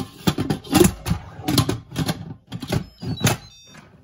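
Instant Pot lid being set on the pot and twisted into its locked position: a run of irregular plastic-and-metal clacks and scrapes, with a few brief high tones near the end.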